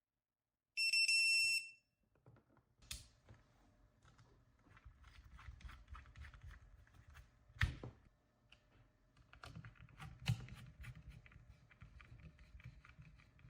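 A single high electronic beep from a piezo buzzer, lasting about a second, then faint scattered clicks and knocks of tools and parts being handled on a workbench, two of them louder.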